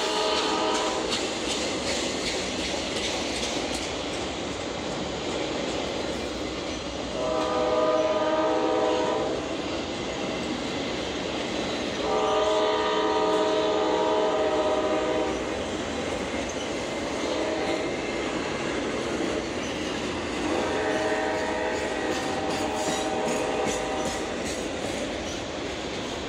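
Norfolk Southern AC44C6M freight locomotive's horn sounding in long blasts: the end of one at the start, then three more about 7, 12 and 21 seconds in, each a chord of several notes. Between the blasts the steady noise of the train rolling carries on.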